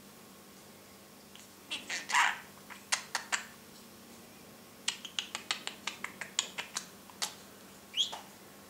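Budgerigar chattering in its cage: a loud scratchy chirp about two seconds in, then a quick run of sharp clicks and short chirps from about five to seven seconds, and a short falling chirp near the end.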